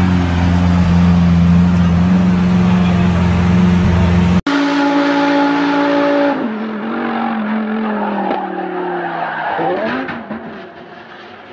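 Lamborghini supercar engine running loud and steady. After a sudden cut, a Lamborghini Huracán race car's engine holds a steady note, then falls in pitch and wavers as the car slows and spins off the track with its tyres skidding. The sound fades near the end.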